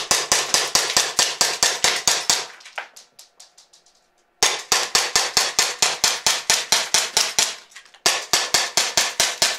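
Airsoft gun firing full-auto into a stack of CDs: rapid, even cracks of shots and BBs striking the discs, about eight a second. The string fades out about two and a half seconds in, starts again after a short gap, and breaks off briefly and resumes near the end.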